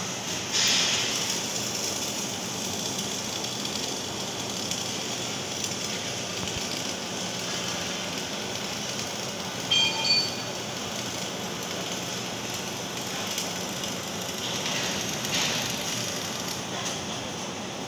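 Steady crackling hiss of an electric welding arc. About ten seconds in there is a short ringing sound, like metal being struck.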